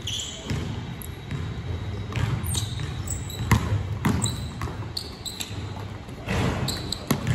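Basketball dribbled on a hardwood gym floor in irregular bounces, the hardest about three and a half and four seconds in as the dribbler drives to the basket. Short, high sneaker squeaks sound between the bounces, with the echo of a large gym.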